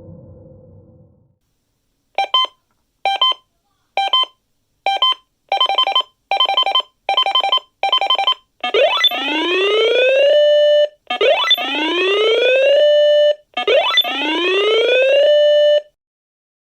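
Synthesized electronic alarm of a mock emergency alert. It begins with four single beeps about a second apart, then quicker double beeps. Three loud rising whoops follow, each climbing for about a second and a half and ending on a briefly held tone.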